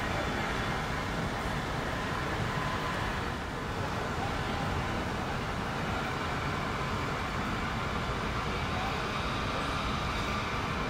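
Steady distant vehicle rumble with no distinct events.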